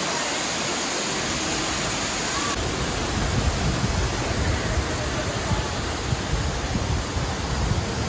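Waterfall pouring through a narrow rock gorge, a steady rush of falling water. About two and a half seconds in, the sharp hiss eases and a deeper, uneven rumble comes up.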